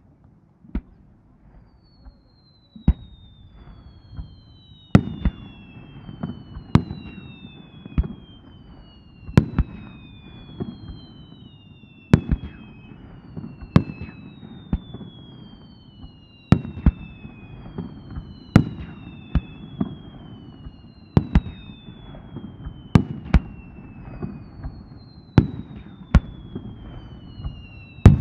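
Japanese aerial fireworks: shells bursting with sharp bangs every second or two, starting sparse and thickening after a few seconds. Under and between them runs a chain of overlapping whistles, each falling in pitch over about two seconds, above a low rumble.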